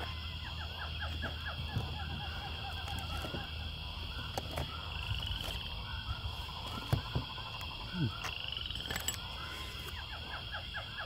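Many short chirping animal calls repeating over a steady high-pitched drone that rises in pitch a few times, with a few brief knocks.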